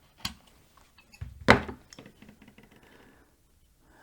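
Sharp clicks, the loudest about one and a half seconds in, followed by a short run of faint crackles from a Ferrex 40V cordless angle grinder as its switch is pressed. The crackling comes from under the control board, where the board shows possible corrosion, not from the motor.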